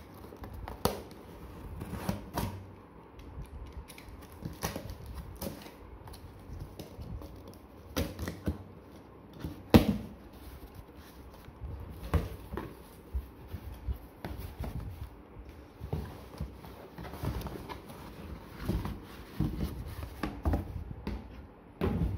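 A cardboard shipping box being cut open with a utility knife and its flaps pulled apart by hand: irregular clicks, scrapes and knocks of blade and cardboard, with one sharp knock about ten seconds in. Near the end the white cloth cover bag holding the helmet rustles as it is lifted out.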